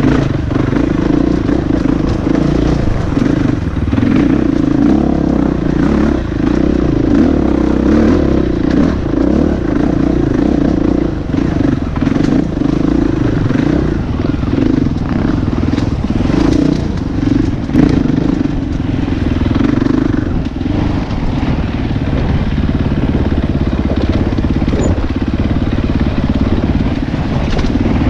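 Husqvarna 450 four-stroke single-cylinder dirt bike engine running at varying throttle, heard on board, with brief dips in the engine note and scattered knocks.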